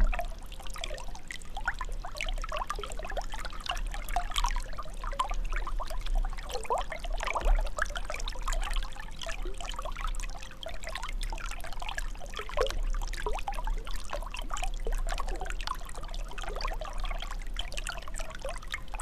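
Water trickling and gurgling: a dense, continuous run of small bubbling blips and drops.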